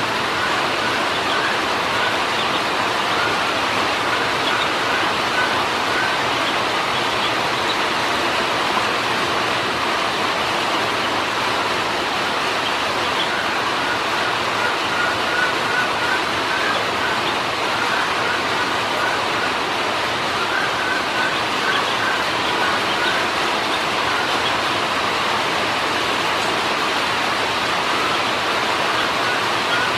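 Ducklings peeping in runs of short, quickly repeated calls while feeding, over a steady rushing background noise.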